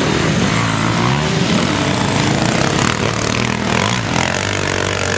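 Several off-road dirt bike engines revving hard, each pitch rising and falling as the riders open and close the throttle. The engines overlap at different speeds.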